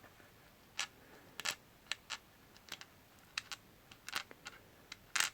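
Small, sharp, irregular clicks and taps of the lock's tiny metal pins and parts being handled on a work surface, a dozen or so, with a louder cluster near the end.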